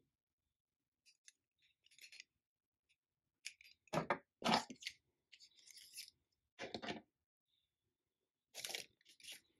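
Handling noise from a hard plastic Beyblade top being turned in the hand and set down on a wooden tabletop: scattered clicks and rustles, with a pair of knocks about four seconds in and more knocks later.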